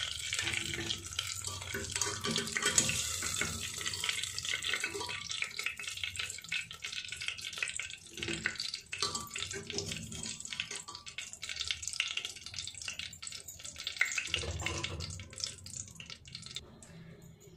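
Hot mustard oil sizzling and crackling in an aluminium pressure cooker after frying potatoes; the sizzle dies down near the end.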